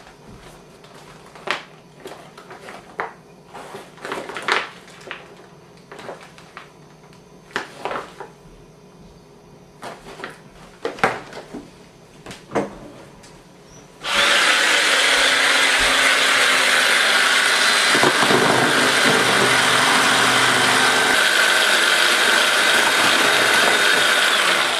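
Scattered clicks and crinkles of a packaged MRE ration being handled. About fourteen seconds in, a loud electric motor starts abruptly and runs steadily for around ten seconds.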